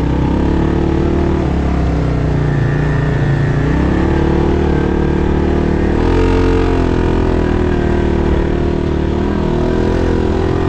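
Arctic Cat Wildcat 1000X side-by-side's engine running under load in the dunes, its pitch shifting up and down a few times as the throttle changes.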